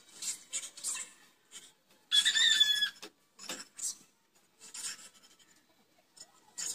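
Hand scrubbing the wet, soapy stainless steel sidecar of a motorcycle tricycle: a string of short rubbing strokes, with one louder, squeaky stroke about two seconds in.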